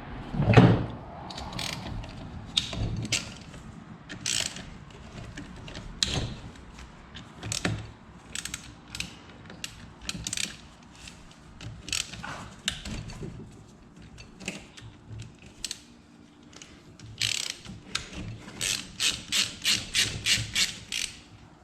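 Ratchet wrench with an 8 mm socket clicking as engine case bolts are worked loose, in short irregular runs with a louder clunk about half a second in, then a quick even run of about five clicks a second near the end.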